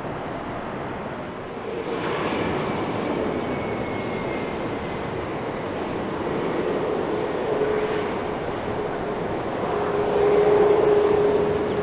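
Airbus A321neo's jet engines running as the airliner rolls out along the runway after landing, a steady rushing noise with a humming tone. It grows louder as the plane passes closest, about ten seconds in.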